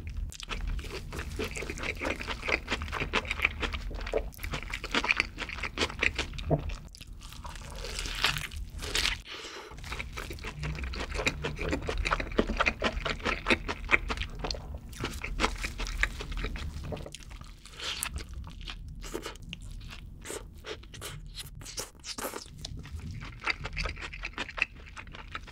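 Close-miked chewing of a mouthful of burger with the lips closed: a dense, continuous run of small crackling clicks, broken by a few short pauses.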